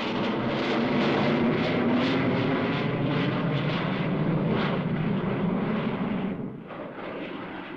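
Avro Vulcan delta-wing jet bomber flying overhead: a steady jet noise that swells during the first second and drops away about six and a half seconds in.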